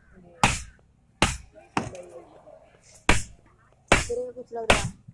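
A hammer striking the steel leaf-spring pack of a Mahindra Bolero pickup on a metal anvil post while the spring is being worked: about six sharp metallic blows, roughly one a second, each with a short ring. Voices talk between the blows.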